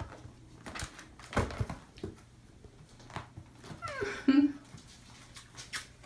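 Kitten pawing and scratching at a corrugated-cardboard scratch pad and a corded toy mouse: scattered light taps and scratches. A short falling vocal sound about four seconds in.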